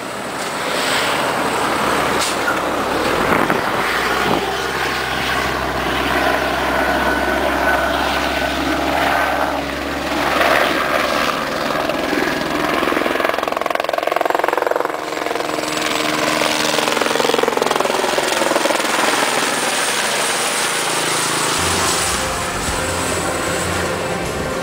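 Police helicopter hovering low nearby: steady rotor and turbine-engine noise.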